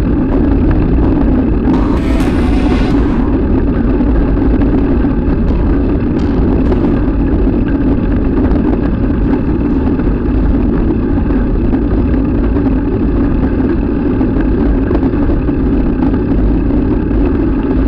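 Steady rolling noise of a mountain bike with knobby tyres riding over paving, mixed with wind rumbling on the bike-mounted camera's microphone. A brief hiss comes about two seconds in.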